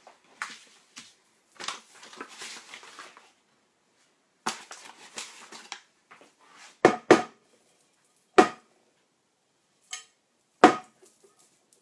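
Flour sprinkled and rubbed into a greased fluted glass tart dish with soft rustling, then the glass dish is knocked four times with short, ringing knocks to spread the flour.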